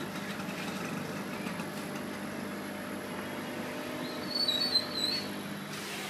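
Steady background noise with a low hum, and a short high-pitched warbling chirp a little past four seconds in.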